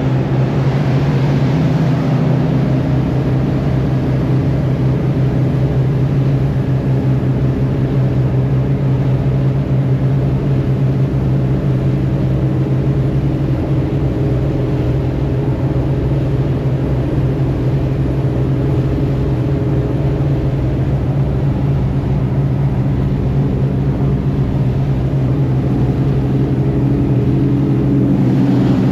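A boat's engine running steadily underway: an even low drone with a rumble and water noise underneath. It changes little, with a slight shift in pitch near the end.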